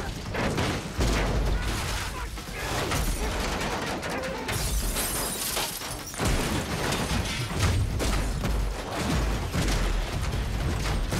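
Action-film sound effects of crashing vehicles and tumbling debris, with low booms and a loud shattering rush about halfway through, mixed over background score music.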